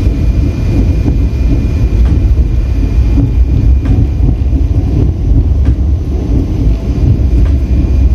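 High-speed passenger train running on the rails: a steady low rumble with a few faint clicks now and then.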